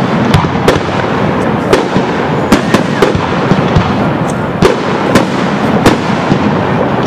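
Fireworks display: aerial shells bursting in an irregular run of sharp bangs, about one or two a second, over a dense continuous din.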